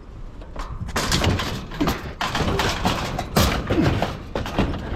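Irregular knocks, thumps and clatter of salvaged curbside junk being handled and stacked into a load.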